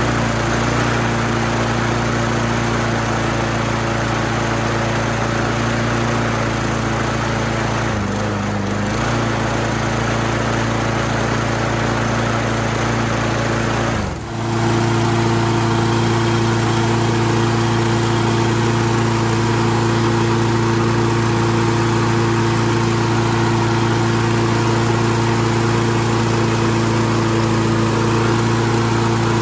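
Briggs & Stratton 6 hp, 190 cc single-cylinder engine on a Scotts by Murray push mower running steadily on its rebuilt replacement carburetor. The engine dips briefly about eight seconds in and again about fourteen seconds in, then runs on evenly.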